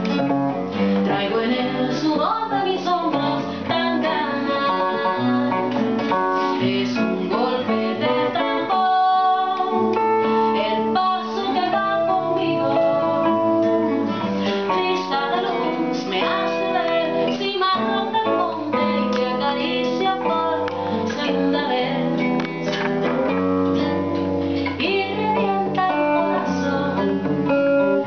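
A woman singing a Cuban trova song and strumming an acoustic guitar, with an electric guitar played through a small amplifier alongside her.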